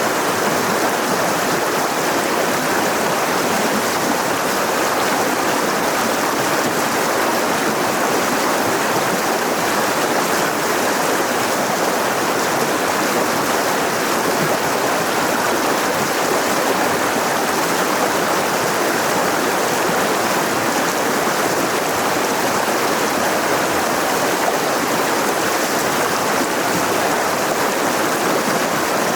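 Mountain river rushing over rocks: a steady, even rush of water that doesn't change.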